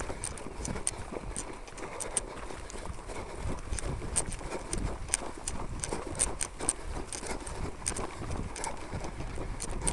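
Footsteps of several trail runners on a narrow dirt and grass path: an uneven patter of footfalls and scuffs with sharp clicks several times a second, over a low rumble.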